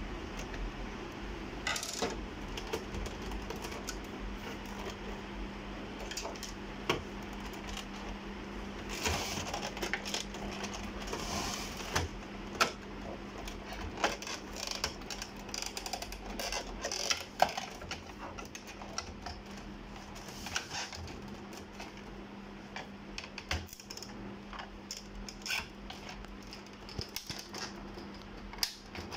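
Scattered clicks, taps and scrapes of a screwdriver and the plastic casing of an HP ScanJet Enterprise 7500 scanner as a screw is turned out and the automatic document feeder's side covers are pried and pulled loose, over a steady low hum.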